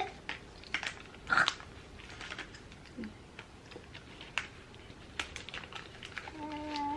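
Scattered light crunching and crumbly clicks of a flaky puff pastry being bitten and chewed. Near the end a steady held hum with a fixed pitch starts up.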